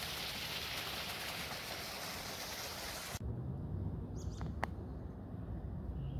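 Steady rush of falling water from a high waterfall. It cuts off suddenly about three seconds in and gives way to a low rumble with a few short, high bird chirps.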